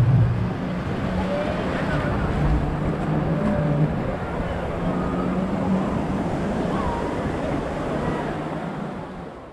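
Yamaha jet ski engine running at low speed in the shallows, with surf washing and wind buffeting the microphone. The sound fades out near the end.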